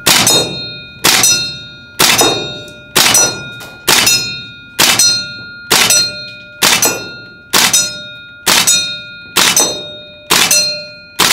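Tokyo Marui Saiga 12K gas blowback airsoft shotgun firing about once a second, thirteen shots in all. Each shot's three BBs strike a steel target plate, giving a sharp clang that rings and fades before the next shot.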